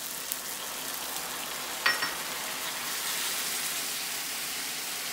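Diced apples and onions sizzling in a hot nonstick frying pan as apple cider vinegar is poured in and stirred with a spatula. The sizzle grows a little louder about three seconds in. A brief clink about two seconds in.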